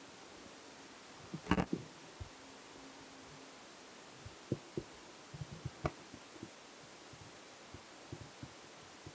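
Handling noise from a handheld wired microphone held against the body: scattered low thumps and knocks, the loudest cluster about a second and a half in, over a steady faint hiss and hum.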